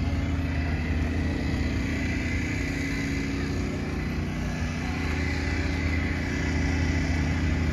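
A motor vehicle engine running steadily: an even low hum with no revving, with a faint steady whine above it.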